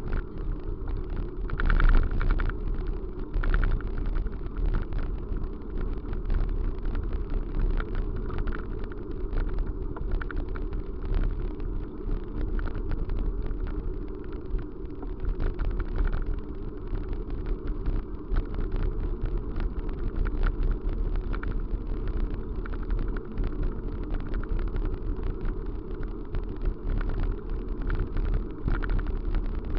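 Steady low rumble of a vehicle in motion, with frequent short clicks and rattles.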